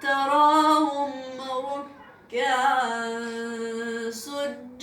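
A young girl's voice reciting the Quran in a melodic tajweed chant: two long sung phrases, the second ending on a long held note.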